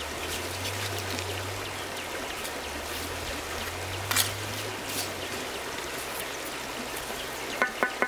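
Steel trowel scraping and scooping wet cement mortar and spreading it along a brick course, with one sharp knock about four seconds in. Near the end, quick ringing taps begin as the trowel handle knocks a freshly laid brick down into the mortar.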